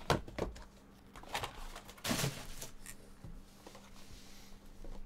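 Sealed cardboard trading-card boxes handled and set down on a tabletop: a few light knocks, then a brief scraping rustle about two seconds in as they are slid into a stack.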